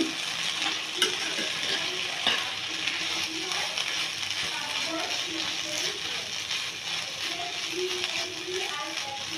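Okra and potato sizzling in a frying pan while a metal spatula stirs and scrapes against the pan, with a few sharp clicks of the spatula on the pan's side.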